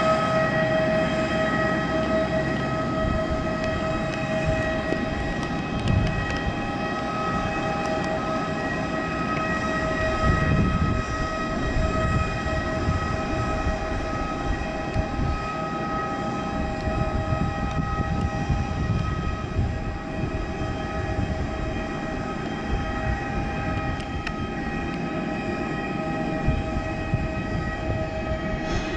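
Jet airliner engines running steadily at low power: a constant multi-tone whine over a low rumble with some wind noise.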